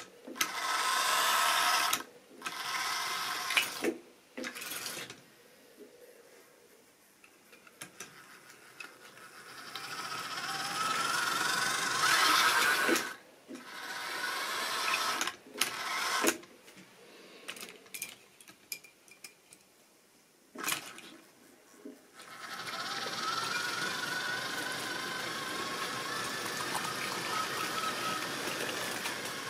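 Model railway goods train running on the track: a small electric locomotive motor whirring and the wagons' wheels rattling on the rails. It comes in stop-start stretches with abrupt gaps, then runs steadily from about two-thirds of the way through, with a faint rising whine as it picks up speed.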